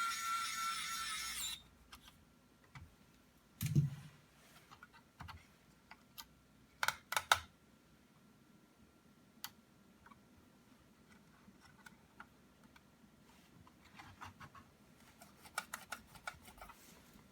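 Laptop keyboard keys clicking in short scattered runs, with a denser run of typing near the end. A steady ringing tone cuts off about a second and a half in, and a single dull thump comes a few seconds in.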